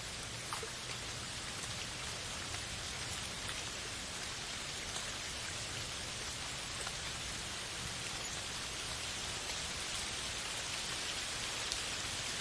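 Steady heavy rain falling on a forest canopy, an even hiss of rain with scattered individual drop ticks.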